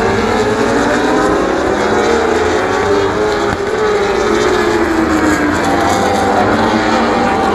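World Superbike racing motorcycles running at high revs on the circuit, several engine notes overlapping and gliding up and down in pitch as the bikes go by.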